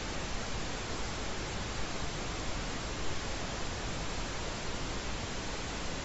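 Steady broadcast static: an even hiss of noise with no tones in it, at a constant level, standing for signal interference on the emergency broadcast.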